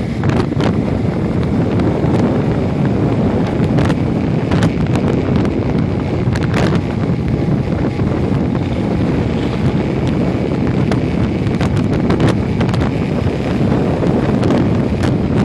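Wind rushing and buffeting over the microphone of a motorcycle cruising at highway speed, with frequent crackling pops, over a steady low rumble of engine and road noise.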